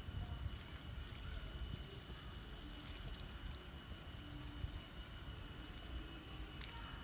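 Faint splashing and trickling of water from a garden hose onto a freshly poured concrete roof slab, which is being wetted to cure it, over a steady low wind rumble on the microphone.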